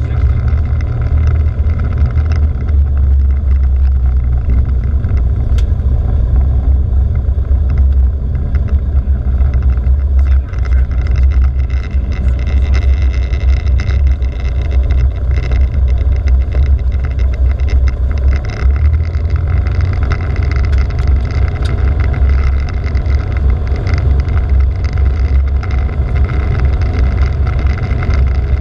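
Cessna 172's four-cylinder air-cooled piston engine and propeller running steadily as the plane rolls along the runway: a loud, low rumble with a steady hiss of rushing air over it.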